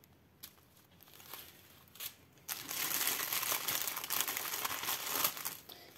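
Small plastic zip-lock bags of diamond-painting drills crinkling as they are handled. A few light clicks come first, then a steady crinkling from about halfway through that lasts a few seconds.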